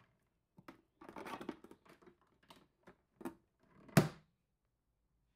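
Rustling and light clicks of a white towel being handled and unfolded, then one sharp snap about four seconds in, the loudest sound.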